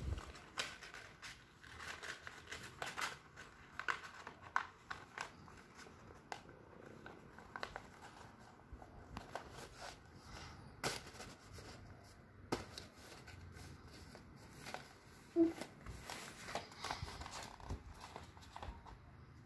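A sheet of drawing paper being rolled up and folded by hand: irregular crinkling and rustling with scattered sharp crackles.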